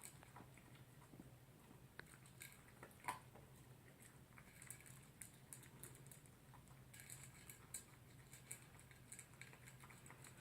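Faint, irregular small clicks and crunches of a toy poodle eating its dinner from a bowl, over a low steady room hum.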